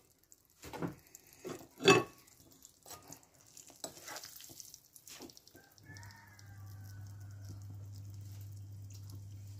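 Wooden spatula stirring and scraping thick eggplant-and-yogurt curry in a frying pan, with a few sharp knocks against the pan, the loudest about one and two seconds in. From about six seconds a low steady hum joins.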